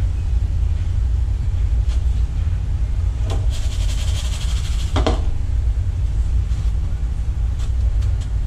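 A steady low rumble throughout, with a brief rustling hiss about halfway through as a meat cutlet is laid and turned in a bowl of dry breadcrumbs.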